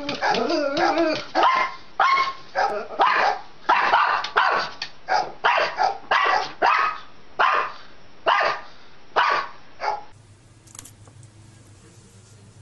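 A small dog barking over and over, short sharp barks about one or two a second, which stop about ten seconds in.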